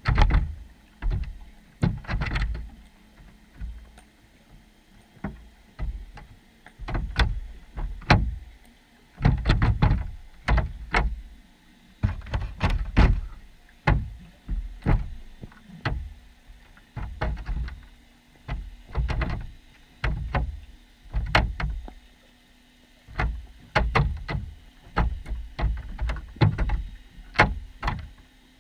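Underwater camera housing inside a wire fish trap picking up a run of irregular knocks and thumps, about one or two a second, each with a deep water-muffled thud and a sharp click on top. A faint steady hum comes in about halfway through.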